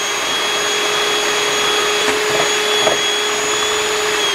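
Electric hand mixer running steadily on high speed, a constant motor whine with the beaters churning through heavy cream as it whips up to stiff peaks.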